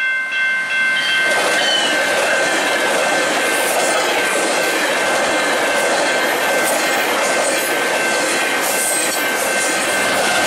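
A 12-car GO Transit push-pull commuter train passing at speed over a grade crossing, its bilevel coaches' wheels rumbling and clattering on the rails, with the MP40 diesel locomotive pushing at the rear coming past near the end. A chord of steady high tones sounds at the start, most of it stopping about a second and a half in, while one high tone carries on throughout.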